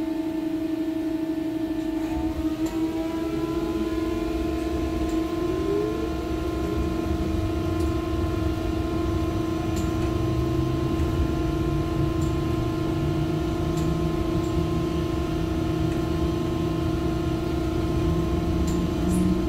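Inside an Ursus T70116 trolleybus: a steady droning hum, which the uploader takes for an irritating blower, over the ride. About two seconds in, the whine of the Cegelec CAC 1400N traction drive climbs in pitch for several seconds as the trolleybus accelerates, with road rumble growing beneath it.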